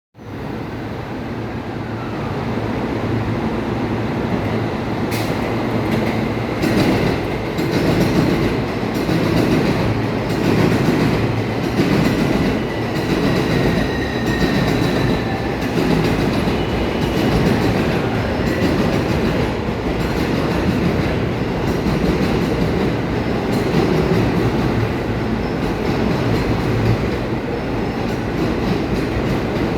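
E231-1000 series electric multiple unit pulling away from a station, its running noise building over the first few seconds and then holding steady. A faint gliding motor whine sits above the rumble, and the wheels start clicking over rail joints about five seconds in.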